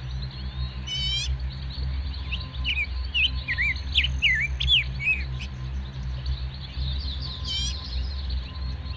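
Birds calling: a quick falling trill about a second in and again near the end, with a run of short whistled notes in the middle. A steady low rumble runs underneath.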